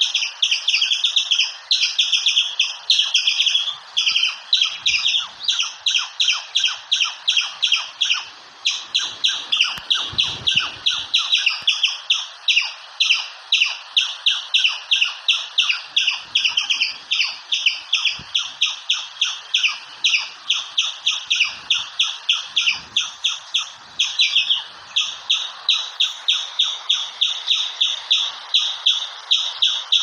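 Squirrel calling: a long run of sharp, high-pitched chirps repeated evenly at about three a second, without a break.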